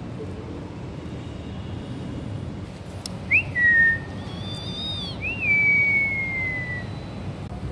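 Whistling: a short whistle that flicks up and then falls, a higher call with overtones, then a longer whistle that slides slowly downward, over a steady low background hum.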